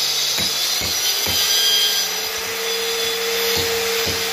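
Handheld electric grinder cutting a groove into a cement-plastered wall, running with a steady whine that rises slightly about two seconds in, over a hiss of grinding. Short low knocks repeat about twice a second beneath it.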